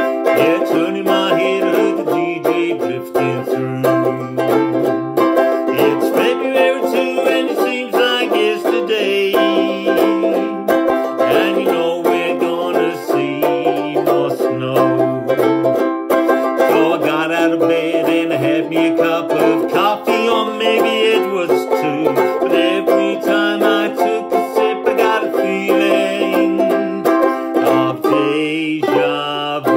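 Banjo ukulele strummed in a steady rhythm, playing an instrumental passage of chords.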